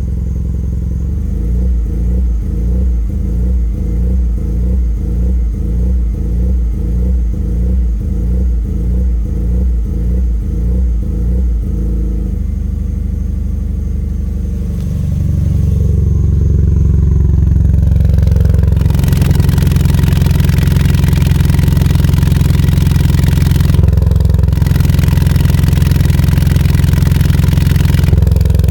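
Bug-eye Subaru WRX's 2.5-litre hybrid flat-four, with 1000cc injectors and catless up- and downpipes, idling high and rough. For the first twelve seconds the idle surges about twice a second; it then steadies and gets louder from about fifteen seconds in.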